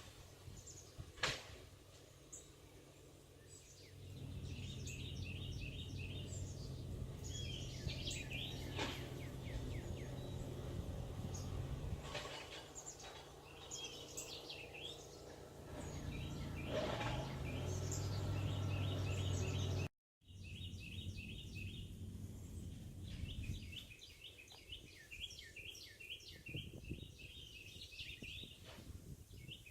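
Songbirds singing: series of quick repeated chirps and short trills, some near and some farther off. A low rumble runs under them from about four seconds in until about twenty-four seconds, and the sound cuts out for a moment about twenty seconds in.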